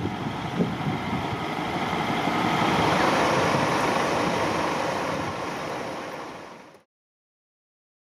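Vehicle engine and street traffic noise, a steady rumble that swells about three seconds in, then fades away and stops abruptly a little before the end.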